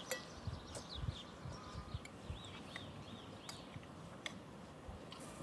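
Scattered clicks and clinks of cutlery on plates during a meal, with small birds chirping; one bird repeats a short arched note four or five times about halfway through.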